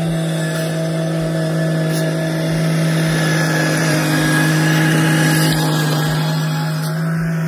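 Stand-on mini track loader's engine running steadily, a loud constant drone that holds one pitch.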